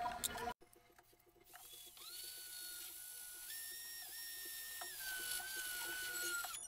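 High-pitched whine of a small electric motor, spinning up about a second and a half in. Its pitch steps up and down, then sags slowly near the end.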